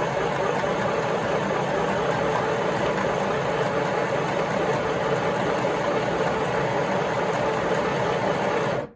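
Small mini sewing machine running at its full speed with the foot pedal pressed flat down, a steady mechanical clatter that stops abruptly near the end. The pedal works only on or off, so this is the one speed the machine gives through the foot.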